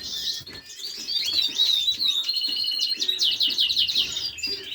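Caged canaries and finches chirping and singing together, a busy mix of whistled notes and chirps with a fast trill about three seconds in.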